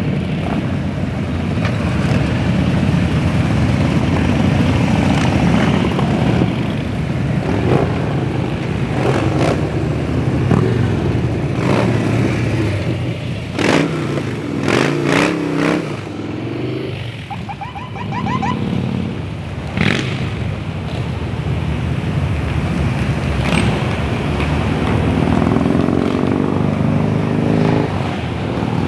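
Motorcycle engines running in a loud, steady rumble, with a few sharp clicks in the middle and one engine's pitch rising near the end as it speeds up.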